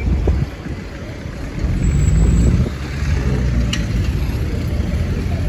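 Street traffic: a car's engine rumbling past close by, loudest about two seconds in.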